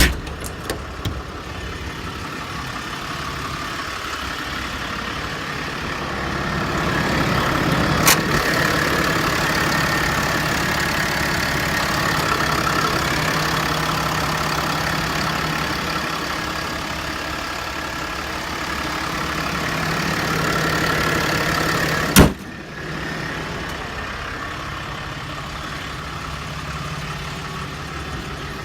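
Engine idling steadily, with a sharp knock about eight seconds in and a louder one about twenty-two seconds in.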